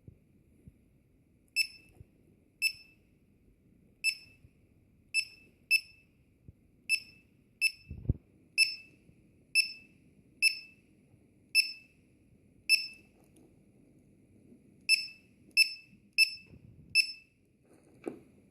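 Battery monitor's low-voltage alarm buzzer sounding short, high-pitched beeps at an uneven pace of about one a second, signalling that the battery voltage is below its alarm threshold. There is a low thump about 8 seconds in.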